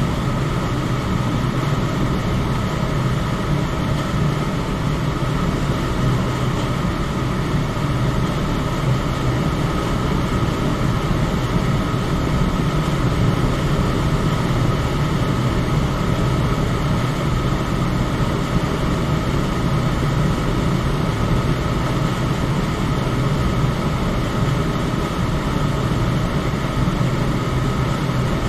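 Electric fan running at a steady speed: an even rush of air over a low hum, with a faint steady tone above it.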